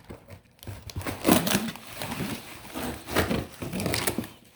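Plastic wrapping on a cardboard box crinkling and rustling as it is cut open by hand, with irregular scrapes and a few sharp crackles.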